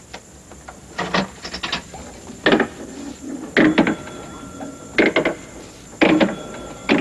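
Jukebox mechanism running, set going by a hand at its front panel: regular mechanical clanks about one a second, some doubled, with a thin steady whine joining about halfway through.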